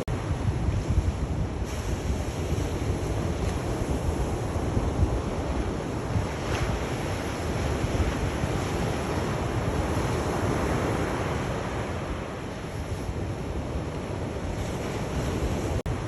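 Sea surf washing onto a shore, a continuous rush that swells and eases, with wind rumbling on the microphone. The sound drops out for an instant near the end.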